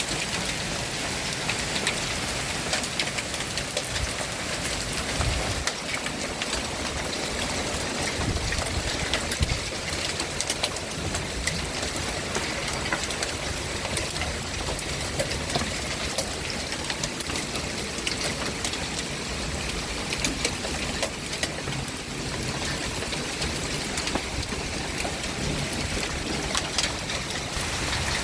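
Hail coming down with rain: a dense, steady clatter of small hailstone hits, with sharper individual strikes scattered all through.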